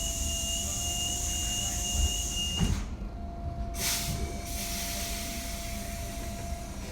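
DART electric train at a standstill: a steady high electrical whine over a low rumble cuts off sharply about two and a half seconds in, and about a second later comes a short hiss of air, typical of the pneumatic doors working.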